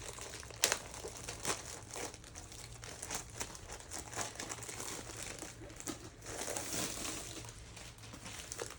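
Diamond-painting kit packaging being handled: plastic bags and wrapping crinkling and rustling, with irregular small clicks and taps.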